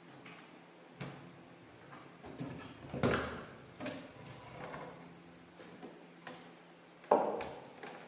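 A handful of knocks and clacks of hard objects being handled and set down on a work surface, the loudest about three seconds in and another sharp one about seven seconds in, over a faint steady hum.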